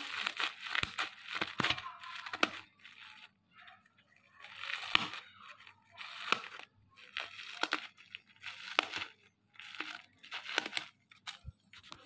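Scissors snipping through a bubble-wrap package, the plastic crinkling with each cut, in a series of short bursts.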